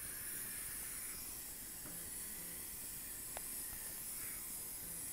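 Oxygen hissing steadily from a cylinder regulator into a non-rebreather face mask set to 15 liters per minute, with a single faint click about three and a half seconds in.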